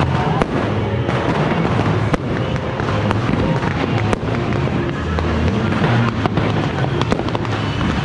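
Fireworks and firecrackers going off in scattered sharp bangs at irregular intervals, over loud music with a heavy bass.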